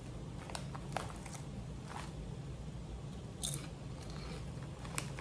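Potato chip being bitten and chewed: a few short, crisp crunches spaced over the seconds. Under them is the steady low hum of a room air conditioner.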